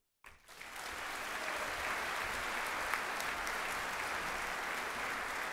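Audience applauding, starting a moment in, building over about a second and then holding steady.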